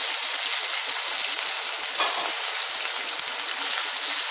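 Potato cubes in hot oil and freshly added water sizzling steadily in a nonstick pan. There is one light knock about two seconds in, and a wooden spatula starts stirring near the end.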